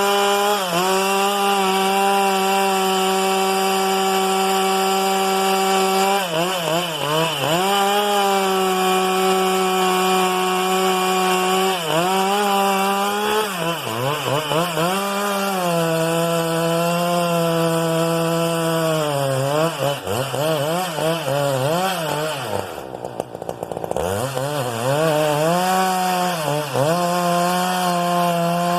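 Husqvarna 395XP two-stroke chainsaw, 94 cc, running at high revs, its pitch wavering and dipping under load as it cuts through wood. About two-thirds of the way through, the engine drops briefly to low revs, then revs back up.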